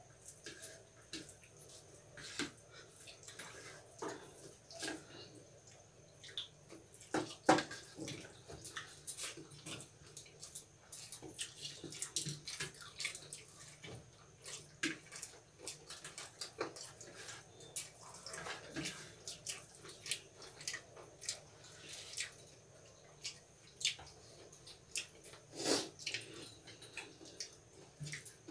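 Eating by hand: wet chewing and smacking mouth sounds with many irregular small clicks, a louder smack about seven seconds in and another near the end.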